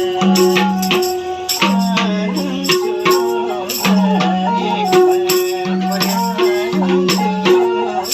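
Nepali folk music: a sarangi melody over a steady madal hand-drum rhythm, with sharp drum strokes several times a second and ringing low drum tones.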